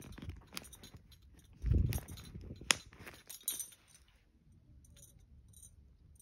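A packed Polene Numero Un Nano leather handbag being handled and closed: leather rubbing and scattered small metal clicks and clinks from the bag and its contents, with a dull thump a little under two seconds in and a sharp click near three seconds. The handling grows quieter after about four seconds.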